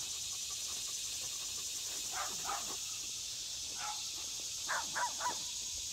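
Farm dogs barking faintly in the distance, about six scattered barks: a pair about two seconds in, one near four seconds and three quick ones near five seconds. This is alarm barking.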